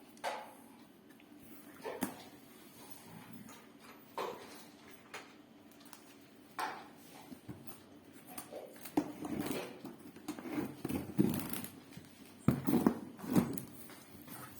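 Cardboard box and packaging being handled and opened: scattered knocks and rustles, growing into busier handling noise about nine seconds in.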